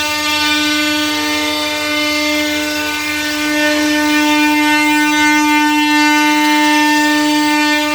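CNC router spindle running with a steady, unchanging whine while cutting wooden bag handles.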